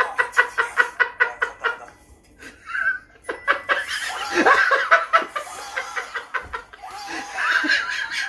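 A person laughing hard in rapid ha-ha-ha pulses of about five a second, in three bouts broken by short pauses about two and six seconds in.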